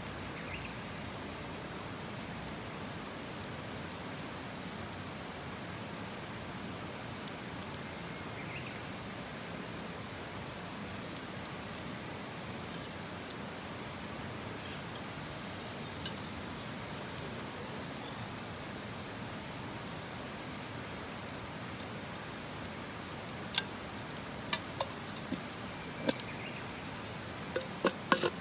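Steady outdoor hiss with faint scattered ticks, then a run of sharp clicks and knocks over the last five seconds, the loudest about five seconds before the end.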